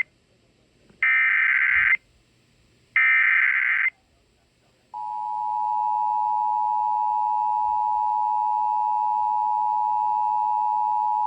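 Emergency Alert System SAME header data bursts: two harsh buzzing bursts, each about a second long, with a short gap between them. About five seconds in, the steady two-tone EAS attention signal begins and holds, announcing a tornado warning.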